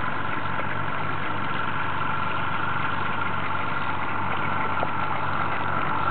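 A small boat's motor idling with a steady, even hum.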